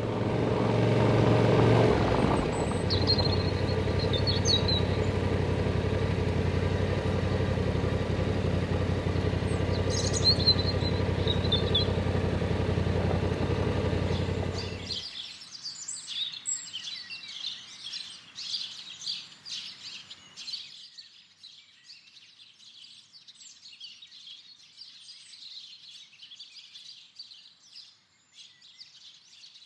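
A motorcycle engine runs steadily at low speed, with a few bird chirps over it. About halfway through it cuts off abruptly, leaving birds singing and chirping in quick succession.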